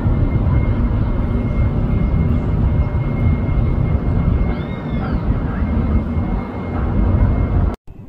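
Loud low outdoor rumble with a faint steady high whine over it, and a short arching bird chirp about halfway through. The sound cuts off abruptly just before the end.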